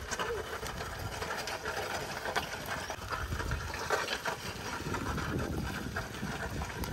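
Bullock-drawn wooden hoe scraping and rattling through dry, loose soil between crop rows, with irregular small knocks.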